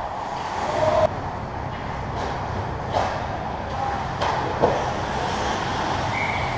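Ice hockey play: a steady scrape of skates on the ice, with several sharp clacks of sticks and puck about two to five seconds in.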